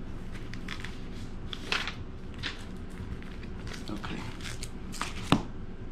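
Plastic comic-book bags and backing boards crinkling and crackling as comics are handled: a string of short rustles and clicks, with a sharper snap near two seconds in and the loudest one near the end.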